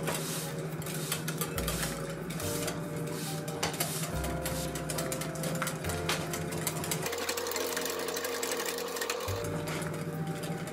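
Wire whisk beating batter in a glass bowl by hand, its metal wires clicking rapidly and steadily against the glass.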